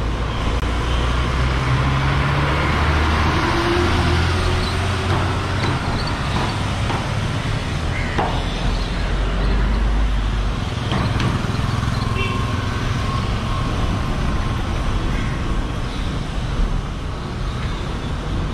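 Street traffic: motor vehicle engines running and passing, with a deep engine rumble through the first half.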